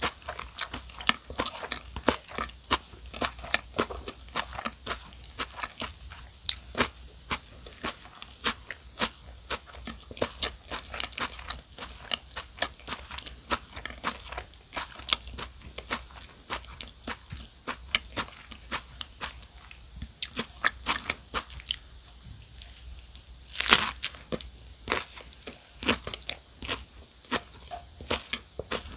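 Close-up chewing of a club sandwich with soft white bread and crisp lettuce: a steady run of small wet mouth clicks and crunches. One louder crunch comes about three-quarters of the way through.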